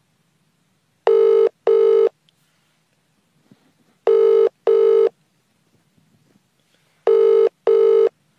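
Telephone ringing on the line in a double-ring pattern: three pairs of short rings about three seconds apart, as a call waits to be answered.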